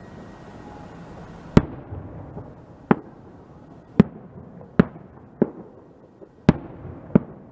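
Aerial fireworks going off: about seven sharp bangs at irregular intervals, with a steady hiss underneath.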